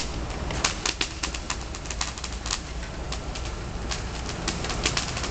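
Handheld firework going off in the hand: a steady hiss broken by irregular sharp cracks and pops, several a second.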